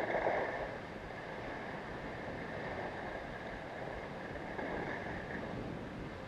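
Wind blowing across the camera microphone: a steady rushing noise with low fluttering gusts, a little louder at the very start.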